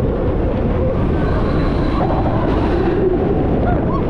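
Roller coaster train running along its track: a loud, steady rush of noise with no break.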